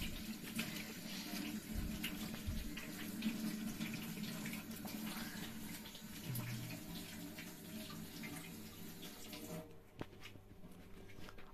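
Water running from a kitchen tap into a sink as hands are washed under it, with small splashes; the tap is shut off near the end.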